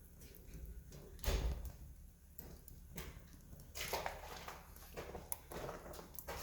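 Wood campfire crackling, with irregular pops and snaps; a louder crack about a second in, and a quick run of snaps near the middle.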